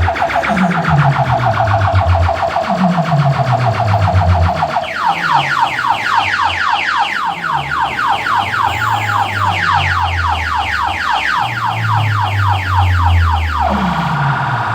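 A DJ sound system playing an electronic competition track loud, with a fast siren-like warble up high. About five seconds in the warble turns into rapid falling chirps, four or five a second, and it returns near the end. Underneath, a deep bass note drops in pitch about once a second.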